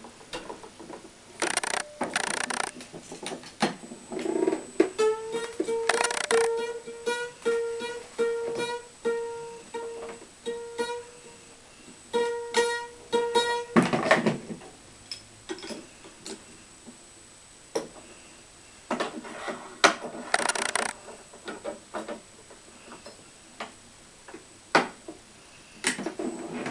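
Tennis racket being strung on an electronic stringing machine: sharp clicks and rattles of clamps and string handling. For about nine seconds in the middle a steady mid-pitched tone repeats about twice a second.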